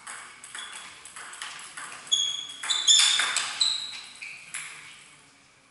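Table tennis rally: quick sharp clicks of the ball on the bats and table, a few a second, with short high-pitched squeaks mixed in around the middle, where it is loudest; the clicks stop near the end.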